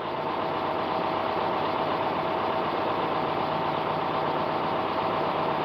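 An engine idling steadily in the background.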